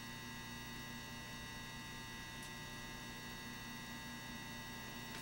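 Steady electrical hum with several faint, unchanging high tones over it: mains hum in the room tone.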